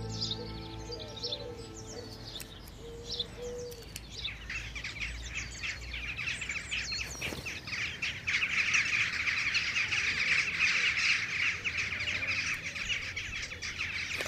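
Many birds chirping and calling in quick, overlapping notes. The calls start about four seconds in and grow loud and dense from about eight seconds in, as soft music dies away in the first few seconds.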